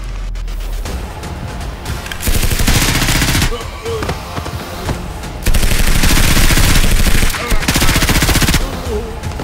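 Three bursts of rapid automatic fire over background music: a short burst, then a longer one about two seconds later, then another close behind it.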